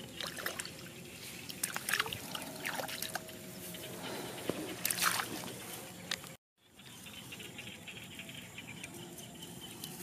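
Muddy water sloshing and splashing irregularly as a macaque wades and paddles in a shallow puddle. About six and a half seconds in, the sound cuts off abruptly and a quieter outdoor background follows.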